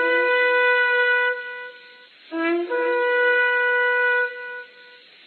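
Shofar (ram's horn) blown in two long blasts, each starting on a low note that jumps up to a higher held note, then trailing off with an echo.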